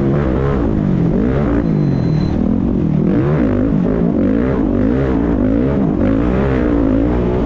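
Off-road race vehicle's engine running hard at speed over a dirt track, its pitch rising and falling again and again as the throttle is worked, with wind and road noise.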